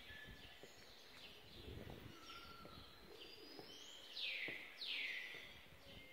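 Small birds chirping, with many short high calls and two louder calls that sweep down in pitch about four and five seconds in.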